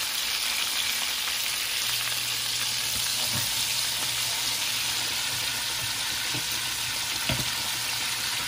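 Battered pufferfish pieces deep-frying in hot oil in a pot, a steady bubbling sizzle.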